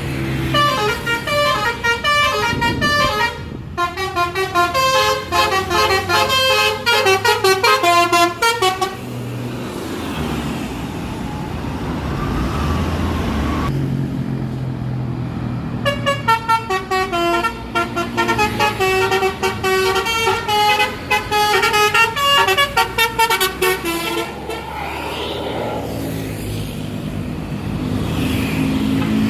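Bus 'telolet basuri' multi-tone air horn playing fast stepping melodies, twice, each run lasting about eight seconds. A bus engine runs steadily between and after the tunes.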